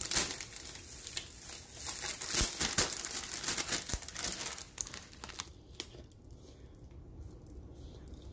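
Crinkly plastic snack packaging being handled and rustled, busy for the first five seconds or so, then dying down to a few faint rustles.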